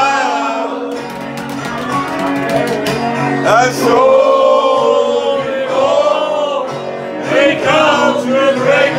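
Men singing along together to a song with guitar backing.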